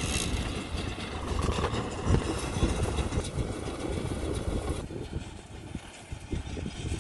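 Kubota tractor's diesel engine running steadily as it tows a round baler through straw. A little under five seconds in the sound gets thinner and quieter, as if heard from farther off.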